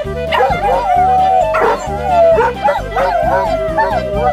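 Chihuahua howling in long wavering, sliding notes, one held for about a second, over an upbeat polka tune with a steady oom-pah beat.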